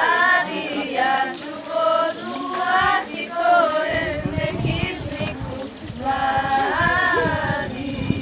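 A group of schoolgirls singing a song together without accompaniment, in unison, in long held phrases. A low rumble joins the singing about four seconds in.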